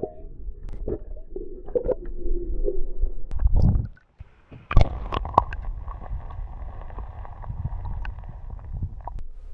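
Muffled underwater rumble and gurgling of river water around a submerged action camera, with scattered clicks and knocks. The sound cuts out briefly about four seconds in, comes back with a sharp click, then goes on as a steadier water hiss.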